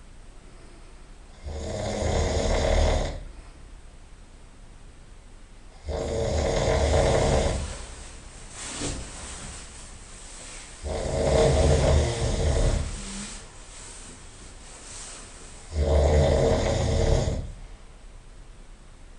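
A person snoring loudly in sleep: four long snores about every five seconds, with much quieter gaps between.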